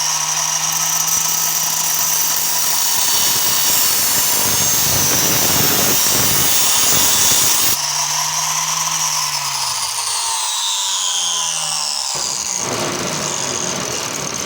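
Handheld grinder with an oversized cutoff wheel running at speed and cutting into a metal door knob, with a harsh grinding noise through the middle. In the last few seconds its high whine falls in pitch.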